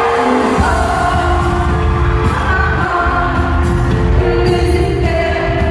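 Live pop song heard from the audience in an arena: a woman sings held notes with a full band behind her. The drums and bass come in strongly about half a second in.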